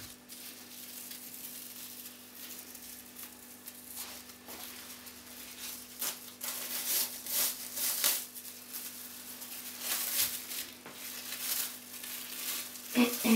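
Thin plastic wrapping crinkling and rustling in irregular bursts as it is peeled off a lump of air-dry clay. The crinkling is busier and louder in the second half.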